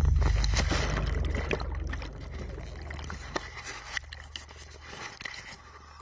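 Air bubbles fizzing and crackling underwater, with a deep rumble fading away under them.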